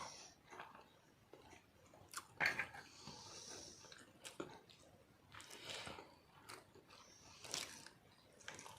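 Chewing and biting while eating boiled eggs, with irregular small mouth clicks and breaths; the loudest click comes about two and a half seconds in.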